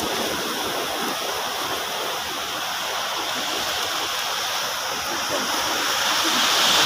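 Steady rush of seawater, surf washing on the shore, growing a little louder near the end.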